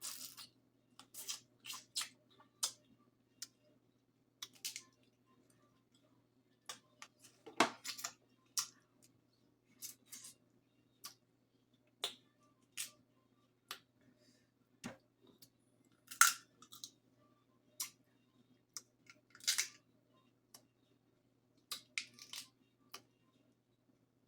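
Irregular sharp clicks and snaps close to the microphone, about one or two a second, as crab leg shells are cracked and picked apart by hand, over a faint steady low hum.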